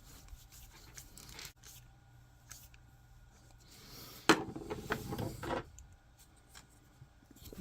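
Small 3D-printed plastic parts being handled and pressed together by hand: faint clicks and rubbing, with a louder stretch of scraping about four seconds in as a tight-fitting piece is worked into place.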